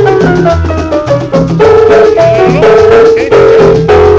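Guaracha dance music with no vocals. A falling run of high notes opens it, then held notes ride over a steady drum and bass beat.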